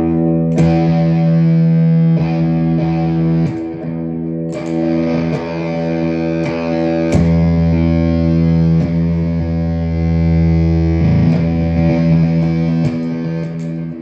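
Electric guitar playing held, heavily distorted chords through a Black Arts Toneworks Destroyer pedal into an Orange amp and cabinet, each chord ringing on and re-struck every second or two.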